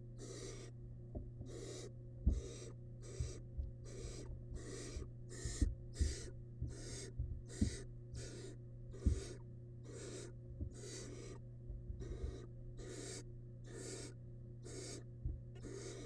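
Barn owl nestlings giving raspy, hissing food-begging calls, repeating about twice a second and overlapping. Scattered low thumps come from the nestlings shifting and tugging on the floor of the wooden nest box.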